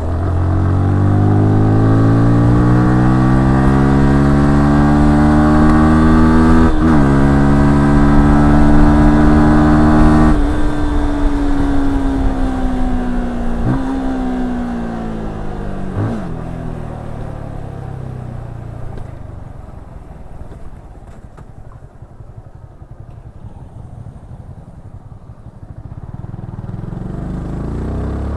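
Yamaha R15S's 155cc single-cylinder engine accelerating hard, the pitch climbing, dropping briefly at an upshift about seven seconds in, then climbing again. Around ten seconds in the throttle closes and the revs fall, with two short throttle blips on the way down, typical of rev-matched downshifts. It then goes quieter while coasting, and the revs pick up again near the end.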